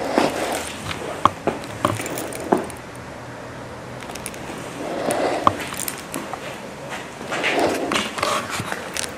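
Breathing through a respirator: several long, hissing breaths, with a few sharp clicks and knocks of debris underfoot in between.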